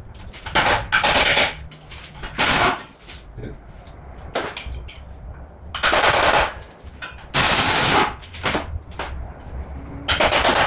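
Pneumatic impact wrench hammering in short bursts, about six in all, undoing fasteners on a car's underbody.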